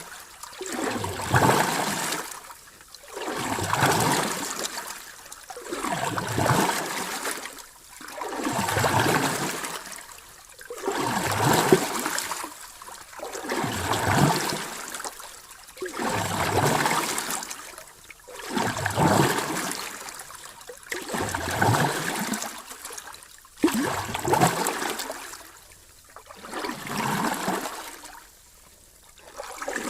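Small sea waves washing in and drawing back in a steady, even rhythm, one swell about every two and a half seconds. There is one brief sharp click about two-thirds of the way through.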